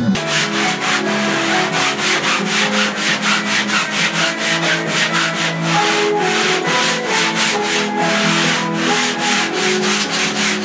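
A sanding block rubbed back and forth by hand over a shaped foam surfboard blank, in quick even strokes of about four a second: finish sanding of the shape.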